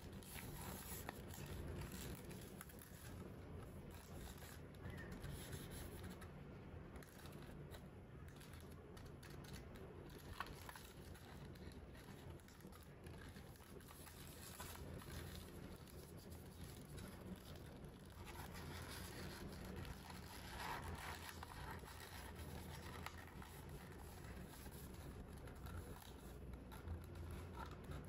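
Faint rustling, creasing and scraping of origami paper being folded and handled by hand.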